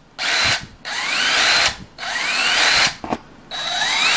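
Bostitch 18 V cordless power tool with a brushed motor run unloaded with four trigger pulls, the motor spinning up each time with a rising whine.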